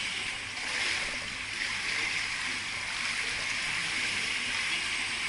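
Steady rush of swimming-pool water with light splashing.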